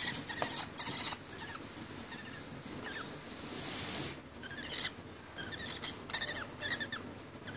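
Baby lovebird chick giving repeated high, squeaky cheeps in short clusters, begging while being syringe-fed. A short rustling noise comes about halfway through.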